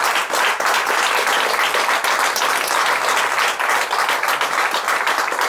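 Audience applauding with dense, even hand-clapping at the end of a talk.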